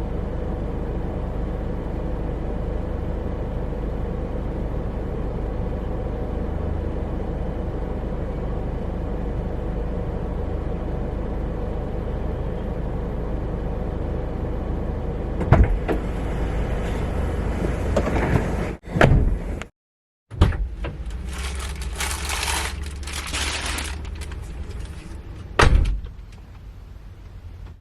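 Steady low rumble of a car's engine and road noise heard inside the cabin for the first fifteen seconds or so, then clicks and knocks, a brief break to silence about twenty seconds in, and a sharp thump near the end.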